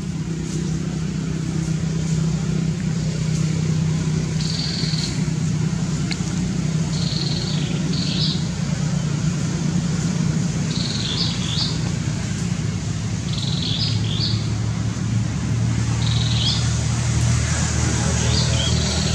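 A steady low motor hum, dropping in pitch about two-thirds of the way through, with a small bird chirping in short high phrases every few seconds over it.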